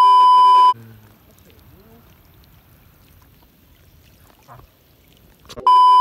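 A loud, steady, high test-tone beep with the TV colour-bars screen for about a second. It is followed by about five seconds of faint water lapping over shallow sand. The same beep returns near the end.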